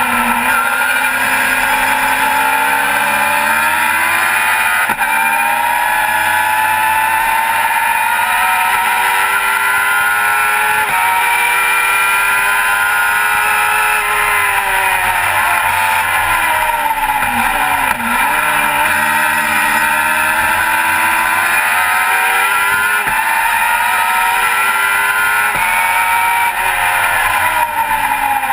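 Racing car engine heard from the cockpit at speed, with wind noise. Its pitch climbs and drops several times with gear changes, falls for several seconds around the middle, then climbs again.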